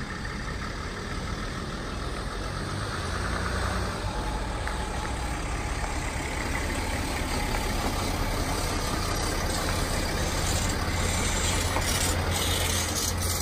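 Large passenger van's engine running at low speed as it approaches and rolls through a gateway, a low rumble that gets gradually louder.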